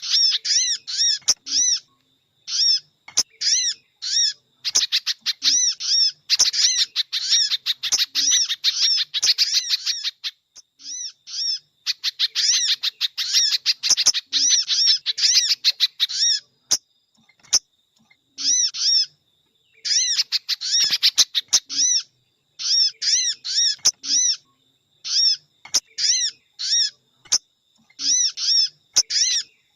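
Bird-trapping lure recording of sogon and spiderhunter (pijantung) calls: rapid runs of sharp, repeated chirping notes broken by short pauses, with a few sharp clicks between them.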